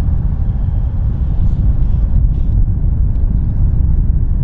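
Wind buffeting the microphone: a steady, low, fluttering rumble.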